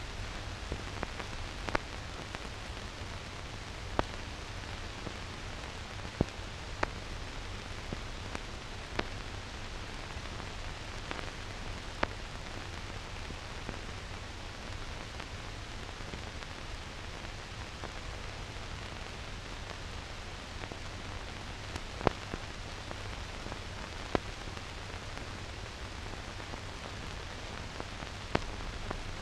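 Steady hiss with a low hum underneath and scattered sharp clicks and pops: the noise floor of a silent newsreel transfer that has no soundtrack.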